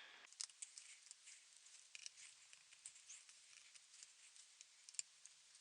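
Faint, irregular small clicks and ticks of a screwdriver turning out the small screws that hold a laptop's trackpad, with the sharpest click about five seconds in.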